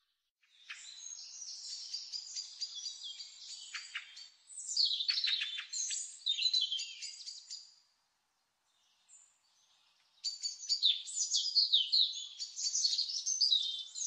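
A songbird singing in bouts of rapid, varied chirps and trills, high in pitch, with a silence of about two seconds past the middle.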